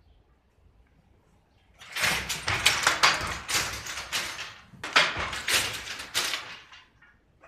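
Wooden pit handloom being worked: rapid wooden clacking and knocking from the shuttle and batten, starting about two seconds in, in two runs with a brief pause between them.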